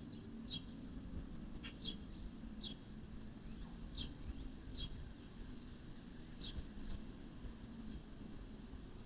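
Short, high chirps from a small animal, repeated about once a second, over a steady low rumble.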